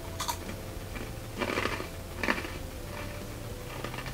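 A crunchy Nongshim honey-and-apple puffed twist snack being bitten and chewed: a few short, sharp crunches, the loudest about two seconds in.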